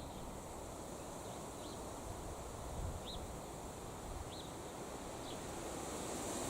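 Five or six short, high chirps from a bird, spaced about a second apart, over a steady high-pitched hiss and a low rumble of wind on the microphone.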